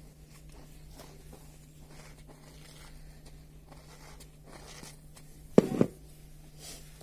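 Slime being worked by hand with baby powder, giving faint soft crackles and rustles over a low steady hum. About five and a half seconds in there is one short, much louder thump-like squish.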